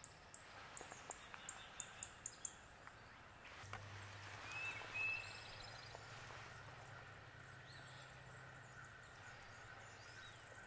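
Quiet woodland with wild birds calling: a quick run of high, thin chips in the first couple of seconds, then two short whistled notes about halfway through, over a faint low hum.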